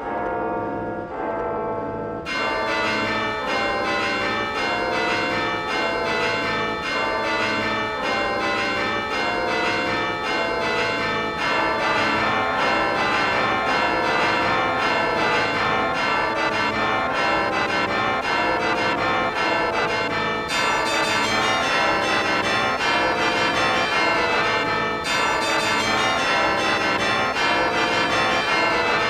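Sampled York Minster cathedral bells played and sequenced on a Teenage Engineering OP-Z synthesizer: dense, overlapping bell tones that sound extremely disturbing. Brighter layers come in about two seconds in, and more join around twelve, twenty and twenty-five seconds in.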